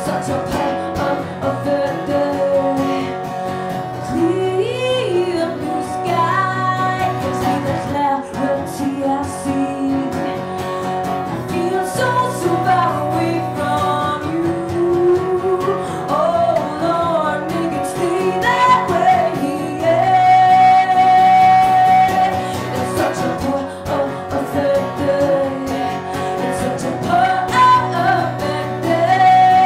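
A woman singing live to her own acoustic guitar accompaniment, with a long held note about two-thirds of the way through.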